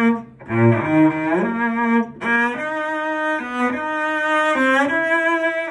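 Solo cello played with the bow: a melody of sustained notes, moving from low notes up into a higher register, with brief breaks between bow strokes about half a second and about two seconds in.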